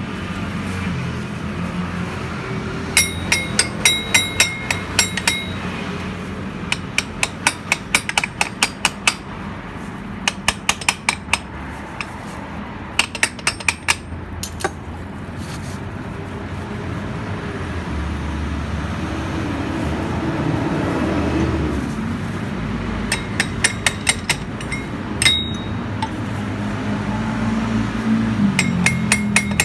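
Hand tools working metal on a scooter's transmission: runs of quick, sharp metallic clicks and taps, about five a second, some with a short ring, coming in six bursts of one to two seconds, over a steady low hum.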